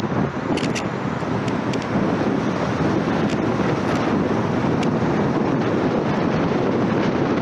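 Wind rushing over the microphone of a car-mounted camera, with steady tyre and road noise from a car driving along a highway. It grows a little louder about two seconds in.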